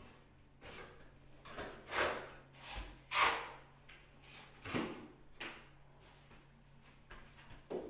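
A hand trowel scraping, a series of irregular swishing strokes as it spreads a white compound over a wall and scoops more from a plastic bucket.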